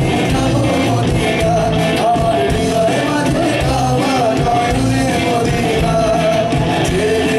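Live folk-rock band playing loudly over a PA system, with electric and acoustic guitars and a drum kit, heard from among the audience.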